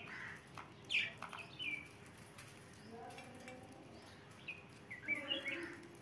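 Budgerigars chirping: scattered short, high chirps, with a loud one about a second in and a busier flurry near the end.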